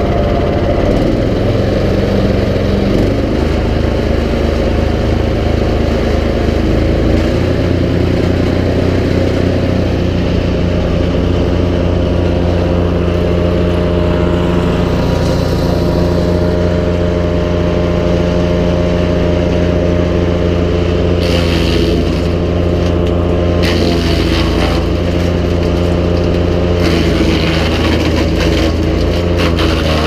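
Nova GTS1500 wood chipper's gasoline engine running steadily; its note shifts about seven seconds in as the throttle is set, then holds at a steady running speed with no wood being chipped.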